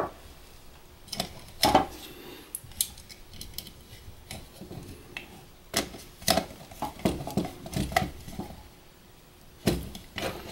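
Irregular clicks, taps and clinks of a screwdriver and small metal parts as a wire is fastened into a pushbutton switch's screw terminal.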